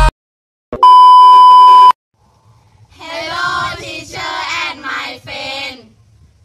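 A loud electronic beep, one steady tone held for about a second. Then several young voices chant a greeting together in a sing-song unison.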